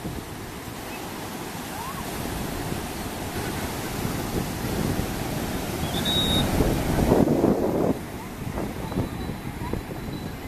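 Surf breaking and washing up a sandy beach: a steady rush of noise that builds to its loudest about seven seconds in, with wind gusting on the microphone.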